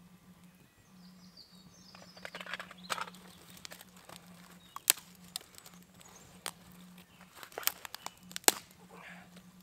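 Wood fire crackling in a small twig stove, with a scatter of sharp cracks, the loudest about five and eight and a half seconds in. A bird chirps faintly about a second in.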